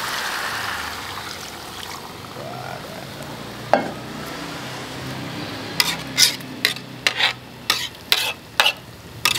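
Water poured into a hot wok on a gas stove, hissing at first and dying down to a quiet simmer within a couple of seconds. One click, then in the last few seconds a metal spatula knocks against the metal wok about seven times.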